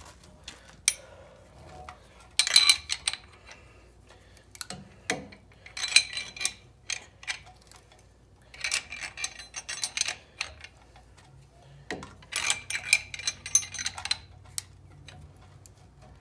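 Ratchet wrench clicking in four bursts as it cranks a caliper piston compressor tool, pushing the pistons of a dual-piston rear brake caliper back into their bores.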